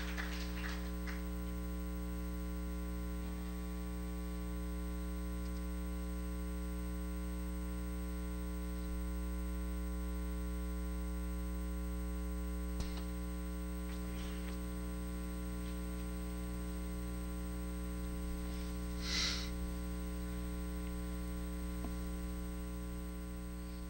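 Steady electrical mains hum through the sound system, a buzzing drone of one low pitch with many overtones. It carries a single faint click about 13 seconds in and a brief breathy rustle around 19 seconds.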